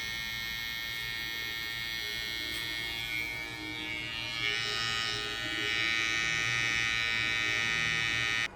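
Babyliss Pro FX cordless hair clipper running with a steady motor buzz, a little louder in its second half, then switched off abruptly near the end.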